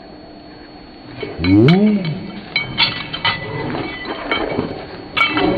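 Light metallic clinking and rattling, many small taps, starting about two and a half seconds in. Just before it comes a short moan whose pitch rises and then falls.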